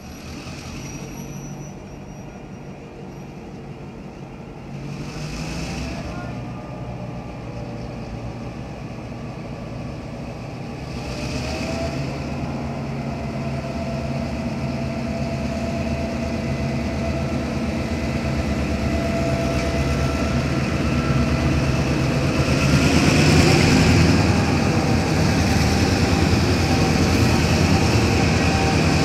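Diesel-electric locomotives S312, T363 and B75 hauling a loaded grain train, their engines running under power and growing steadily louder as they approach and pass close by, loudest near the end. There are brief hissing swells about five and eleven seconds in.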